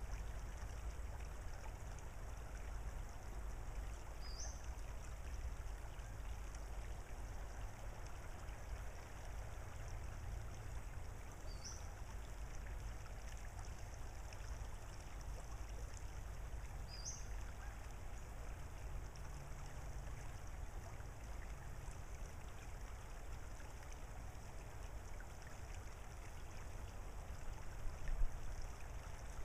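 Shallow creek running over gravel, a steady, gentle babble of water. A short high rising chirp is heard three times over it.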